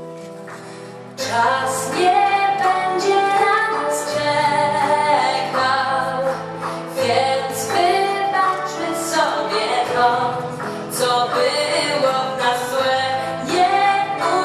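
A woman singing a pop-rock ballad live with a band. Soft held chords open it, then about a second in the full band and her voice come in louder.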